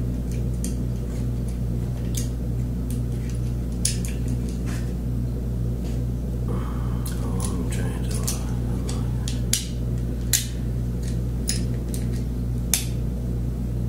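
Small metal clicks and taps of antique mortise lock parts (levers, springs, case pieces) being handled and fitted during reassembly, a dozen or so scattered sharp ticks over a steady low hum.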